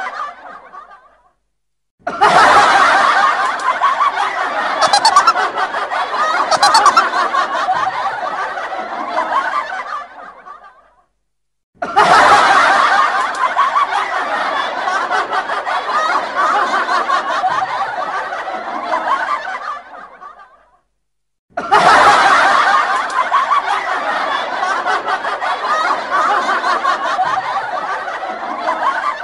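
Canned audience laughter, in three bursts of about eight seconds each that start suddenly and fade out, with short silences between.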